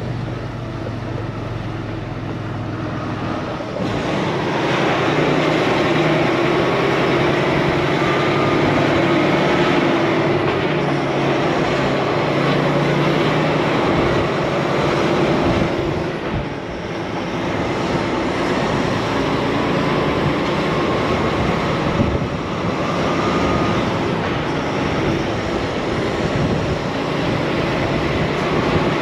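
Steady engine drone and road noise heard from inside a moving truck's cab, growing louder about four seconds in and then holding steady.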